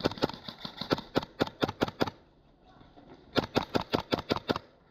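Gas-blowback airsoft gun firing quick semi-automatic shots, about five a second: a string of about a dozen, a pause, then a second string of about eight.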